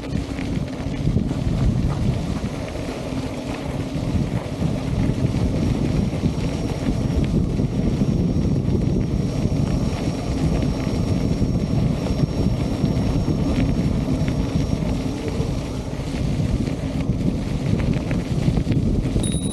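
Wind buffeting the microphone with a steady low rumble as an electric unicycle rides along a gravel path at moderate speed. A short high electronic beep sounds near the end.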